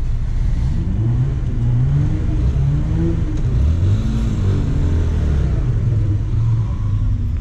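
Bajaj Pulsar's single-cylinder motorcycle engine running, its pitch rising and falling a few times over the middle seconds as the throttle is blipped, then settling back to a steady idle.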